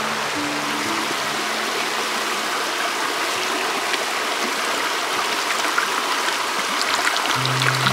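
Shallow rocky stream flowing steadily, with light wet splashes toward the end as grated coconut is squeezed by hand in a metal bowl. Soft background music fades out about a second in and comes back near the end.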